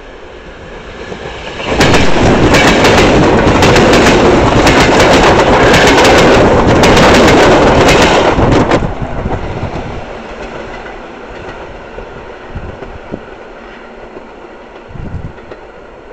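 Two coupled EN57 electric multiple units passing close by at speed. The sound rises for about two seconds as the train approaches, then comes about seven seconds of loud rushing with rapid clicking of wheels over rail joints, and it fades as the train moves away.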